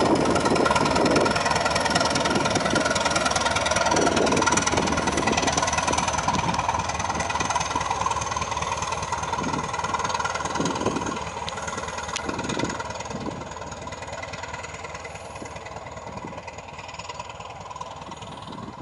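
A British Rail Class 205 'Thumper' diesel-electric multiple unit pulls away, its diesel engine running with an uneven low pulsing and a thin high whine that sinks slowly in pitch. It fades steadily as the train draws off.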